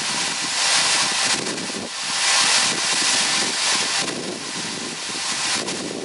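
Soybeans pouring from a grain cart's unloading auger into a semi trailer: a steady hissing rush, with wind gusting on the microphone.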